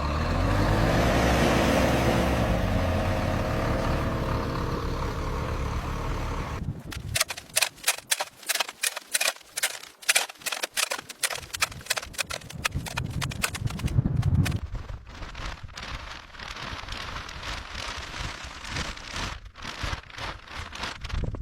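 A motor running steadily, which cuts off about six seconds in. A long run of sharp clicks and knocks follows, several a second and uneven in loudness.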